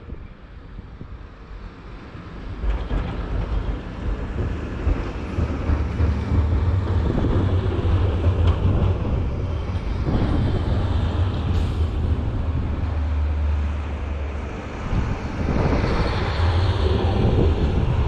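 Snowplow dump truck's diesel engine rumbling as it approaches and passes, growing louder about three seconds in, with its lowered plow blades scraping and pushing snow along the road.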